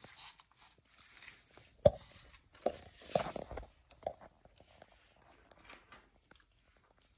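Asian water monitors feeding on raw chicken gizzards and livers: irregular clicks and knocks of jaws and claws at the food plate, the sharpest knock about two seconds in and a cluster soon after.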